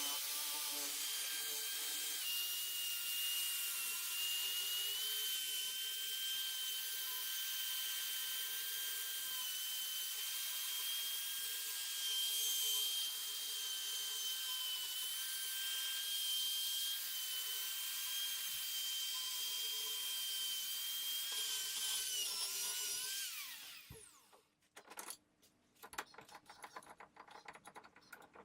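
A handheld power tool running at a steady high whine with a harsh hiss over it, then spinning down about 23 seconds in. After that come a few faint clicks and taps.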